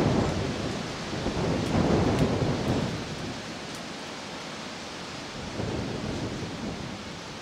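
Rushing, rumbling wind noise buffeting the microphone, swelling twice in the first three seconds and then easing to a lower steady rush. A few faint ticks sound high above it.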